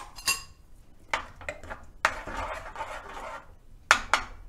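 Spoon knocking against a pot and stirring salt into thick cooked moong dal: a few sharp clinks, a stretch of scraping and stirring in the middle, then two more knocks near the end.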